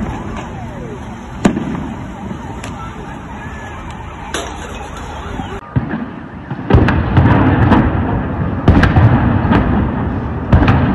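Sharp bangs a second or two apart over the steady noise of a large crowd. About halfway through comes louder, rumbling noise with a string of heavy bangs, explosions or shots echoing over a city.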